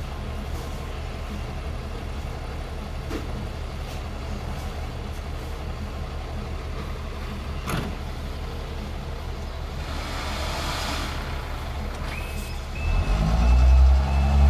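Ford Cargo dump truck's diesel engine idling steadily while its tipper bed is raised to unload. Near the end a beeper sounds in short repeated beeps, and the engine's note rises and gets much louder.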